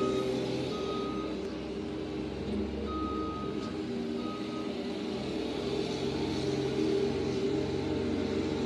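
ASV RT-30 compact track loader's diesel engine running steadily while it grades dirt. Its backup alarm gives a few short beeps in the first half, then stops.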